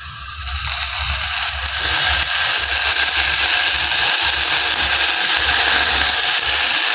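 Onions frying in a hot pan as cooking oil is poured in, sizzling; the hiss builds over the first two seconds and then holds steady.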